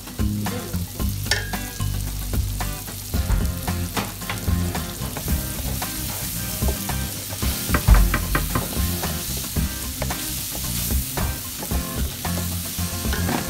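Onions, green pepper and chopped herbs sizzling in a stainless steel frying pan while a wooden spatula stirs them, with repeated scrapes and taps against the pan. The sizzle is loudest in the middle.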